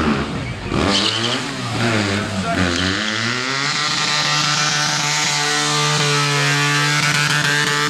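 BMW motorcycle engine revving up and down, then held at high revs for several seconds in a burnout, the spinning rear tyre adding a loud hissing screech on the pavement.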